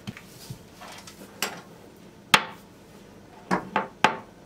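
Several sharp clinks: a metal spoon knocking against a small ceramic bowl as chocolate spread is scooped out. The loudest comes about two seconds in, with three quick ones near the end.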